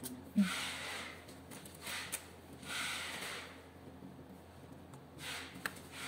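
A person breathing audibly close to the microphone, a soft hiss about every two and a half seconds, with a few faint sharp clicks from fibre optic connectors being handled and plugged into an adapter.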